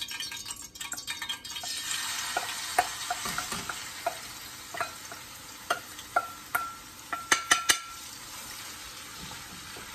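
Raw chicken pieces dropping into hot oil in a wok and sizzling, the sizzle starting about two seconds in and slowly dying down. A metal bowl clinks against the wok several times as the last pieces are knocked out, a few of the clinks ringing briefly.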